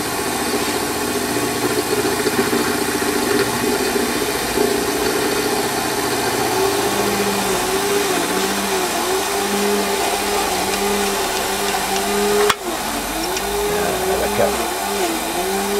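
Warco lathe running a 12 mm end mill in its headstock collet, the cutter milling a slot in a workpiece fed across it on a vertical slide: a steady machine drone with the cut. From about seven seconds in, a strimmer engine joins over it, its pitch wavering up and down as it is throttled.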